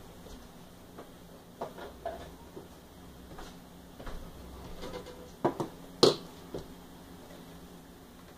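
Hand-tool handling around an opened cassette deck: scattered light clicks and knocks as wire cutters are picked up and brought to the deck's wiring, with the two loudest knocks about five and a half and six seconds in. A faint steady hum lies beneath.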